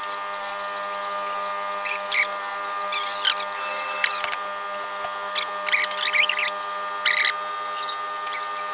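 A steady machine hum with irregular short, high squeaks on top, several in a row between about five and eight seconds in.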